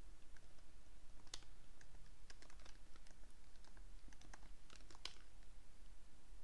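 Typing on a computer keyboard: scattered, irregular keystrokes, with two louder clicks, one about a second in and one near the end.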